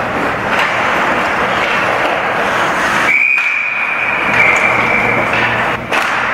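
Ice hockey referee's whistle: one long steady blast about three seconds in, lasting about two seconds, stopping play as the goalie lies on the puck in a scramble at the crease. Under it, loud steady rink noise with a couple of sharp knocks.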